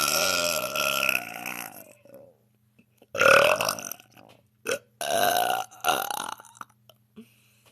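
A woman belching loudly several times: a long burp that trails off about two seconds in, then two more long burps with a short one between them.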